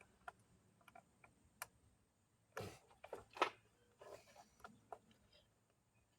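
Faint, irregular clicks and light metallic taps from a ratchet, extension and spark plug socket working a spark plug loose, with a louder cluster of knocks about halfway through.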